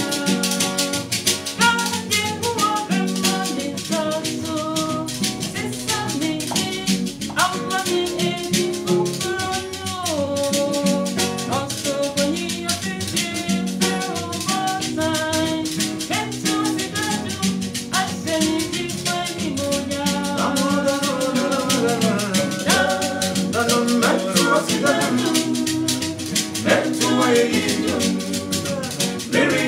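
Acoustic guitar playing with a hand shaker keeping a fast, steady rhythm and several voices singing along, an informal gospel song.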